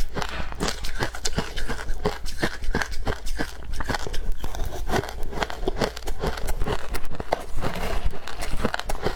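Close-miked chewing of freezer frost scraped from a fridge freezer, a steady run of loud crunches, several a second.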